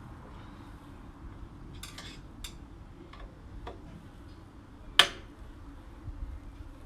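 Scattered metallic clicks and clinks of hand tools and parts being handled, with one sharp, louder click about five seconds in.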